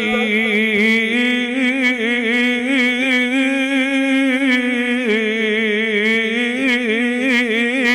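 A man's melodic Quran recitation (tilawat), drawing out the word 'marratayn' from Surah al-Ahzab 33:31 in one long, ornamented line whose pitch wavers up and down, ending near the close.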